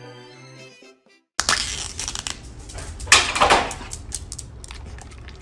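Piano music fades out in the first second; after a brief silence comes the crackling, tearing noise of a foil lid being peeled off a plastic yogurt cup, loudest about three seconds in.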